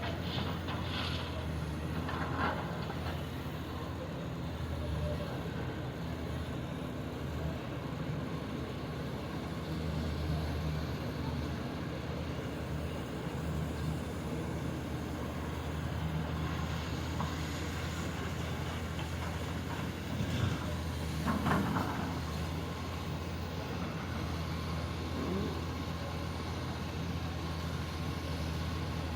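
Heavy diesel engine of mining machinery running steadily at a constant speed. A few brief louder noises come about two-thirds of the way through.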